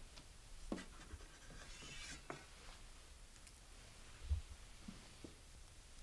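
Faint handling noises in a quiet room: a scratchy rustle about two seconds in, a few light clicks, and a soft low thump about four seconds in, the loudest sound.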